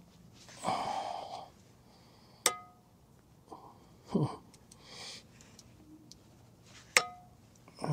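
Hand work on a metal boat-brush pole as a scraper is fastened to its end: a short rasp about a second in, then two sharp metallic clinks that ring briefly, with small handling noises between.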